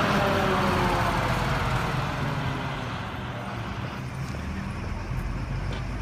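RC model truck running, a steady low engine-like rumble that slowly gets quieter.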